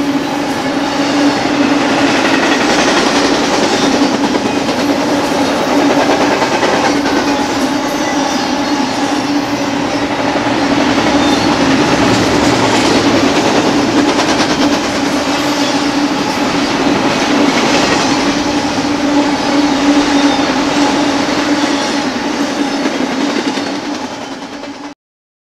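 Double-stack intermodal freight train's container well cars rolling past, a steady rumble of wheels on rail with a constant low tone running through it. It fades as the last cars go by and then cuts off abruptly shortly before the end.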